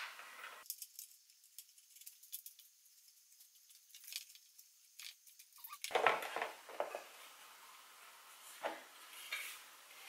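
Light metallic clicking and scraping of a screwdriver on the old mirror's metal fixings. About six seconds in comes a thump and rustling as the mirror is lifted and turned over on a board, with another knock near the end.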